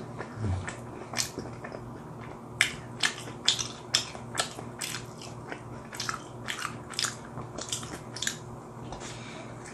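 Close-miked chewing of pizza: irregular wet clicks and crunches from the mouth, about two a second, with a faint steady hum underneath.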